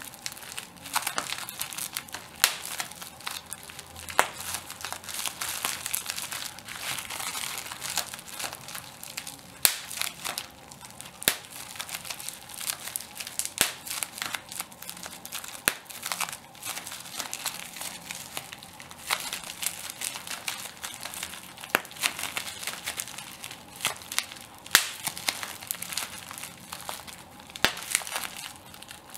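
Plastic bubble wrap being crumpled and popped by hand: steady crinkling of the plastic sheet with irregular sharp pops of bursting bubbles every second or so.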